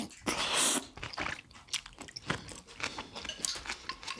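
Wet chewing and mouth sounds of someone eating miso udon soup, with a run of small irregular clicks and squishes.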